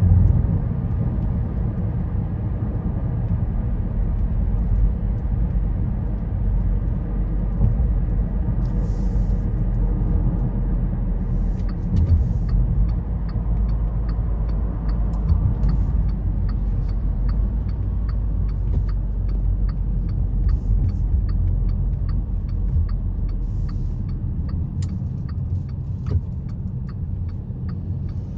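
Road noise inside a moving car: a steady low rumble of engine and tyres. A regular light ticking joins about halfway through.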